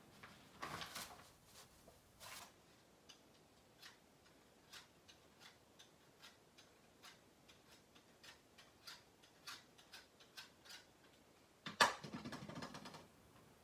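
Faint, irregular light clicks and taps, a few each second, then a brief louder clatter with a rustle near the end.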